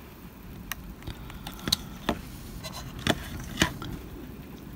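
A scattering of short, sharp clicks and taps, about six or seven, from a craft knife's tip and fingers working on a small plasticard model building as it is pressed and turned in the hands.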